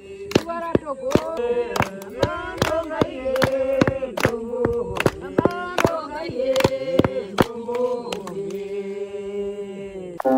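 Group of Herero women singing a traditional song unaccompanied, keeping time with steady hand-clapping at about two claps a second. Near the end the clapping stops and a voice holds one long note.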